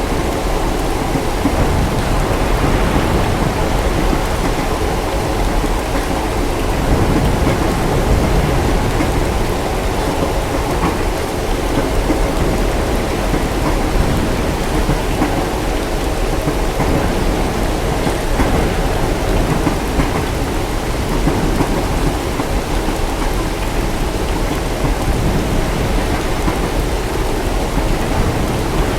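Steady heavy rain with a continuous low rumble of thunder, under which runs the low hum and rumble of a moving train. The sound swells slightly a few seconds in.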